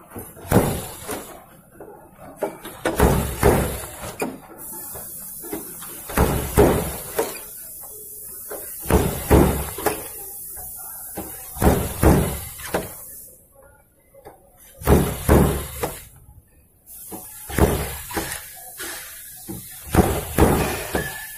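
Irregular knocks and thumps on a car's sheet-metal body panel, worked by hand as a dent is pushed out, with two short pauses a little past halfway.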